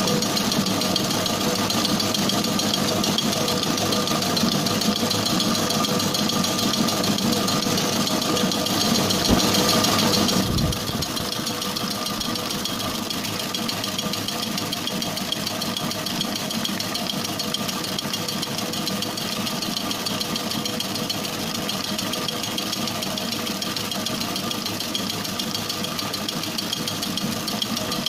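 Commercial planetary mixer running steadily, its whisk beating sponge cake batter in a stainless steel bowl with a constant motor hum. There is a brief louder stretch with a single knock about nine seconds in, and the sound settles a little quieter just after ten seconds.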